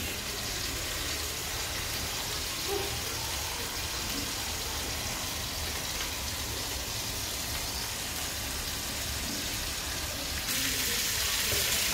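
Steaks sizzling steadily in a hot frying pan, getting a little louder about ten and a half seconds in.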